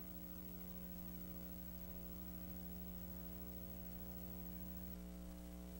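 Faint steady electrical mains hum: a low, even buzz of several steady tones that does not change, with no beeps or other sounds.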